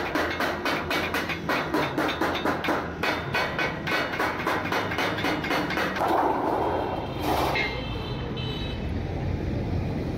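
Wooden mallet striking thin steel sheet laid over a steel rail, about four blows a second, folding the sheet's edge. About six seconds in the blows stop and a steady low rumble of a passing vehicle, with a faint beeping, takes over.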